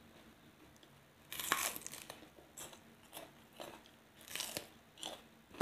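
A crisp bite into a piece of raw bitter melon, followed by several crunching chews.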